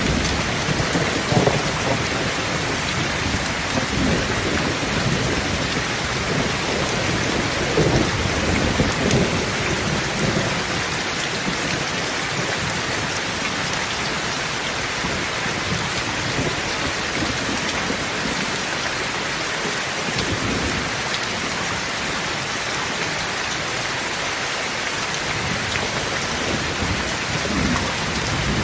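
Thunderstorm: steady rain hissing throughout, with rolling thunder rumbling low during the first ten seconds or so, then dying away, and a low rumble building again near the end.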